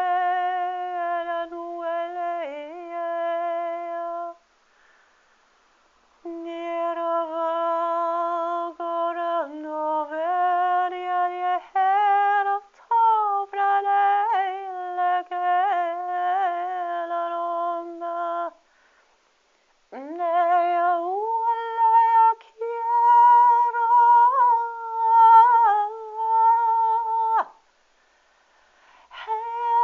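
A high voice humming a wavering, slow melody of held notes and sliding pitches, in three phrases with brief pauses between.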